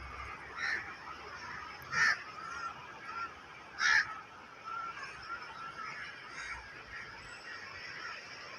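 Birds calling: a few short, loud honking calls, the loudest about two and four seconds in, with fainter chattering calls between them over a steady background hiss.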